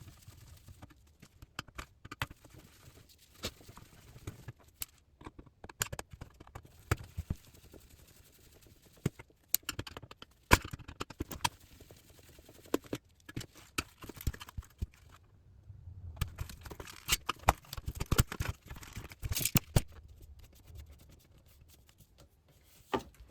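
Irregular clicks, taps and light knocks from hands and tools handling the parts of an LCD monitor being taken apart.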